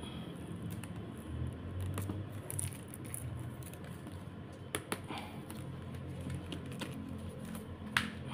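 Fingernails picking and scratching at the plastic shrink-wrap on a stack of children's books, making scattered small clicks and crinkles, with a sharper click near the end.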